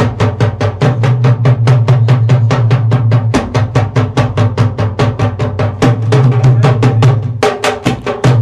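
Music: fast, even drumming at about five strokes a second over a low steady bass hum. The drumming thins out briefly near the end, then a few last strokes follow.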